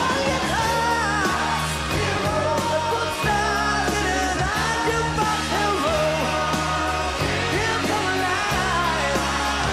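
Rock band playing a song with a man singing lead over electric guitar, bass and drums.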